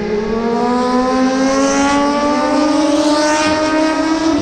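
Racing engine accelerating on a race circuit, its note climbing slowly and steadily in pitch.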